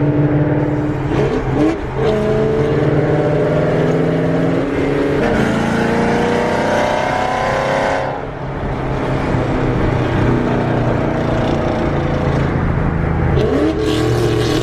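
Ford Mustang's 3-valve 4.6-litre V8 with aftermarket exhaust accelerating hard in a roll race. The engine pitch climbs, breaks at a shift about a second and a half in, climbs again for several seconds, drops sharply about eight seconds in, holds steadier, and breaks again near the end.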